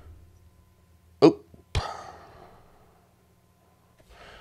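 Two short clicks about half a second apart: keys struck on a computer keyboard, entering a typed command. A faint rustle follows near the end.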